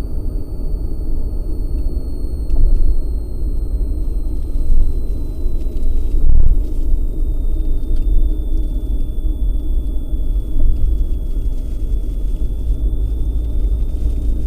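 Steady low rumble of tyre and engine noise heard inside a car cruising on a highway, with a faint thin high whine that slowly drifts lower in pitch.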